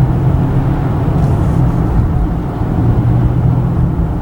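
Steady low hum of a moving car heard from inside the cabin: engine and tyre noise at cruising speed.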